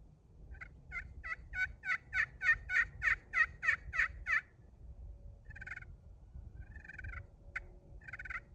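Friction turkey pot call, gray slate over glass in a tigerwood pot, worked with a black locust striker. It gives a run of about thirteen evenly spaced yelps that grow louder, then a few softer short notes in the second half.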